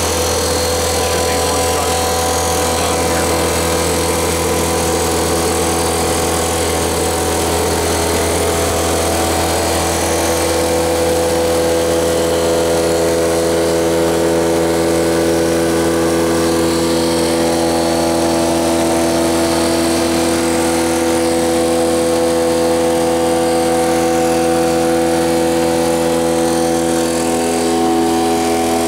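CNC milling machine's spindle turning a CBN-tipped face-milling cutter at 2,500 RPM, taking a light skim pass across the deck of a cast-iron MGB engine block. A steady whine of several held tones over a low hum and hiss, the tones shifting slightly in pitch around ten seconds in and again a little later.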